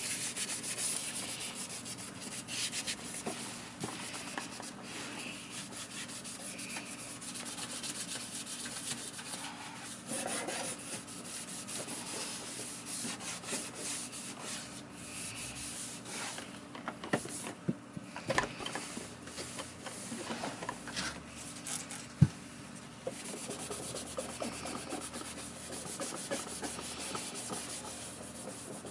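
Steady rubbing and scrubbing of vacuum cleaner parts being cleaned by hand, with scattered small clicks and knocks and one sharp click about two-thirds of the way through.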